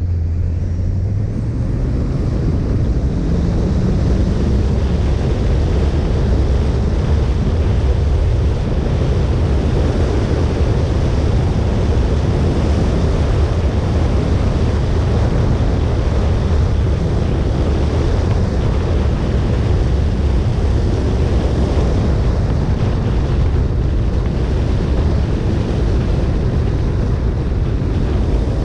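Wind buffeting the microphone over the bonnet of a moving Mini Cooper S Roadster, with a steady low rumble from the car. The engine note rises over the first few seconds as the car accelerates, then settles into a steady cruise.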